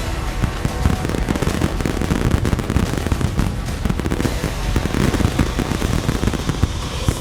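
Fireworks display barrage: shells bursting in rapid, overlapping succession, a dense run of booms and cracks over a continuous low rumble.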